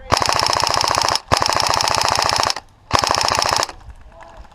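Airsoft electric rifle firing three rapid full-auto bursts, each a fast, even stream of shots. The first two bursts last a little over a second each, with a short break between them, and the third is shorter.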